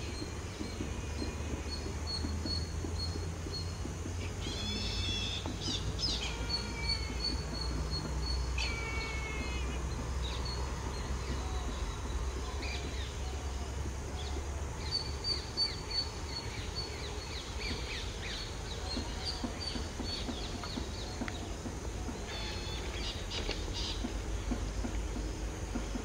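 Birds chirping and calling in short falling trills, several times, over a low steady rumble.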